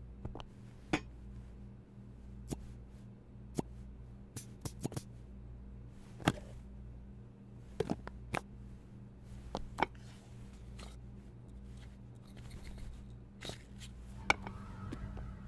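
Coffee-making gear being handled: about a dozen sharp clicks, taps and knocks, irregularly spaced, over a steady low hum.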